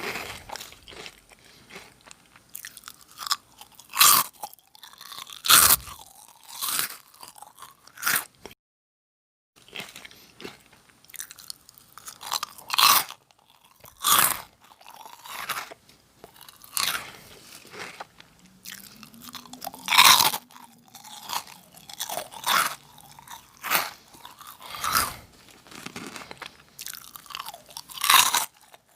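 Close-up crunching and chewing of Nongshim Jagalchi, a crispy octopus-flavoured snack, in irregular bites with sharp crunches, broken by a moment of silence about nine seconds in.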